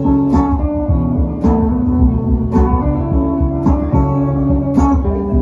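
Acoustic guitar and electric guitar played together live, with sustained chords and a strong accented strum about once a second.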